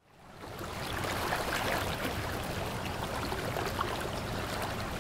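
River water running, a steady rushing sound that fades in over about the first second.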